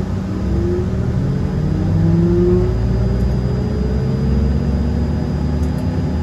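Rolls-Royce AE 3007 turbofan of an Embraer 135 starting up, heard from inside the cabin: a low rumble under a whine that rises slowly in pitch as the engine spools up.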